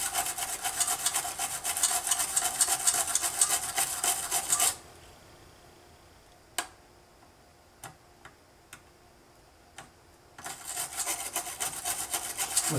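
Non-conductive brush scrubbing corrosion off a Mac LC II logic board, with fast scratchy back-and-forth bristle strokes. The scrubbing stops about five seconds in, leaving a few small clicks, and starts again near the end.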